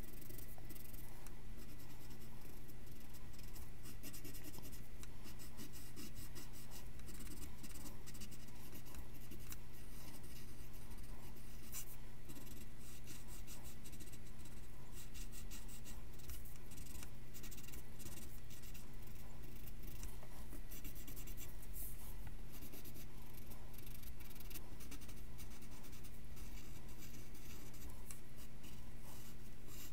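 Graphite pencil scratching across paper in quick, irregular strokes while shading and sketching. A steady low hum sits underneath.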